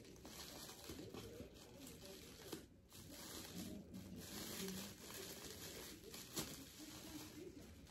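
Faint rustling and soft tearing of paper wrapping as a mailed succulent is unwrapped by hand.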